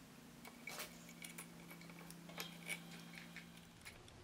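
Light metallic clicks and clinks, scattered irregularly, from a camshaft sprocket and cam chain being handled and fitted into a four-stroke dirt bike's cylinder head, over a faint steady low hum.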